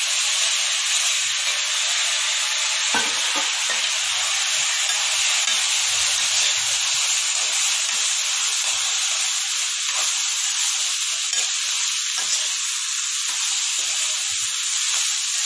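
Steady frying sizzle as idli pieces and sautéed onion and capsicum are stirred and tossed in a hot kadai with a steel spoon. Now and then the spoon scrapes or knocks against the pan.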